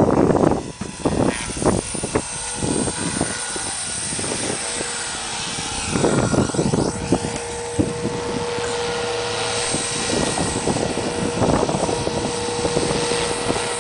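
Align T-Rex 400 RC helicopter in flight: a steady high whine from its motor and rotor that grows stronger about halfway through. Wind buffets the microphone in the first few seconds.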